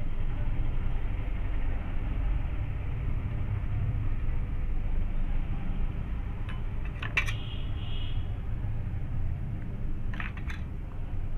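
Steady low mechanical rumble throughout, with two short clusters of sharp clicks: one about seven seconds in and one near the end.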